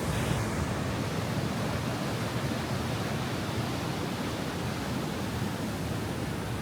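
Steady rush of flood-swollen river water pouring over a concrete stepped fall, a dense even roar with no breaks. The river is running high after heavy typhoon rain.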